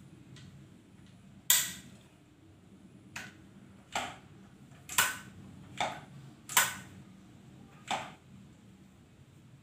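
Tranquilizer dart rifle being handled: about seven sharp clicks from its mechanism, irregularly spaced, the loudest about a second and a half in.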